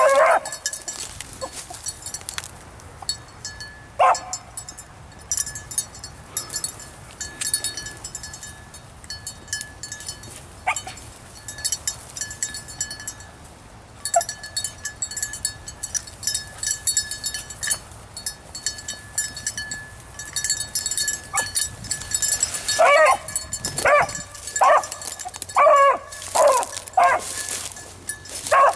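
A beagle baying while running a rabbit's scent. There are a few single bays spread apart at first, then repeated baying through the last several seconds.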